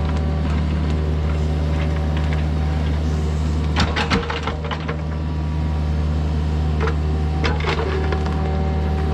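Kubota mini excavator's diesel engine running steadily, with a few sharp scraping knocks about four seconds in and again near seven seconds, typical of the bucket or tracks striking dirt and rock.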